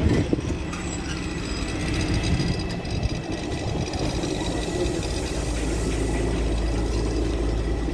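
LiAZ-5292.65 city bus engine running with a steady low hum, heard from inside the bus, with a short knock at the start.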